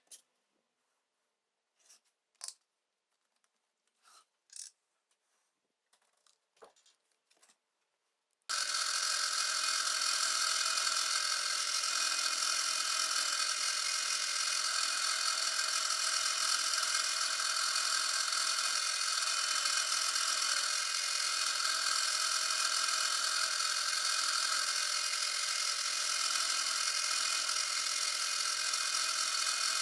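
A few light clicks and taps, then about eight seconds in a power tool starts abruptly and runs steadily, a loud even noise with a faint whine in it.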